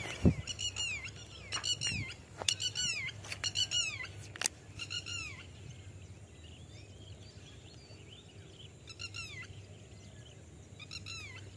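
Birds calling in quick runs of short, falling chirps, thickest in the first five seconds and again briefly near the end. A few sharp clicks come among them, the loudest about a quarter second in.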